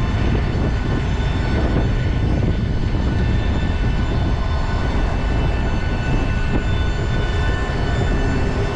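Steady jet aircraft noise on an airport apron: a low rumble with several steady high whining tones over it.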